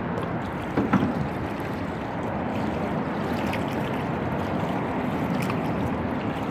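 Canoe being paddled: water splashing and trickling around the paddles and hull as a steady wash, with a couple of short knocks about a second in.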